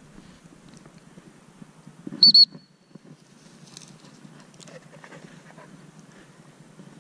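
A dog-training whistle blown in two short, loud, high toots about two seconds in, calling the retriever in to the handler.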